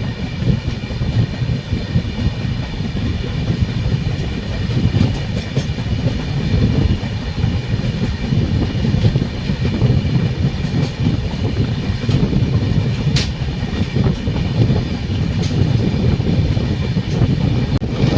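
Train running on the track: a steady heavy rumble with the clatter of wheels over the rails and a faint high ringing above it, and one sharp click about two-thirds of the way through.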